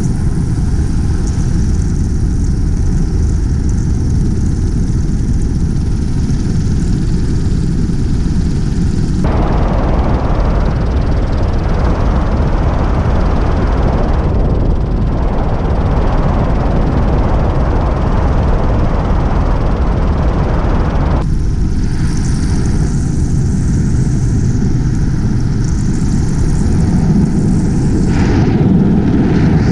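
Paramotor in flight: the steady drone of the Miniplane's two-stroke Top 80 engine and propeller, mixed with wind rushing over the microphone. The sound turns duller and fuller about nine seconds in and changes back about twenty-one seconds in.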